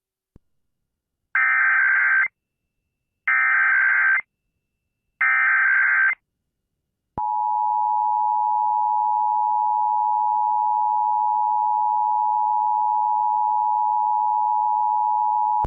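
Emergency Alert System test tones: three roughly one-second bursts of SAME header data, then a steady two-tone attention signal (853 and 960 Hz) that starts about seven seconds in and holds. These are the tones that open an EAS Required Monthly Test.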